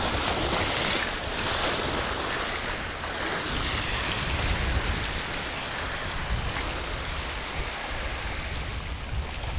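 Small waves washing and breaking over a rock shelf, with wind rumbling on the microphone.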